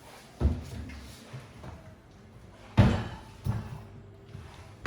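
Several separate knocks and bangs, like things being banged about in a kitchen; the loudest comes a little under three seconds in.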